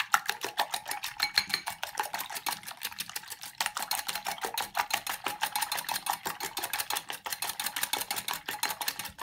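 Wire balloon whisk beating eggs in a ceramic bowl, its wires ticking against the bowl in a rapid, even rhythm without a break.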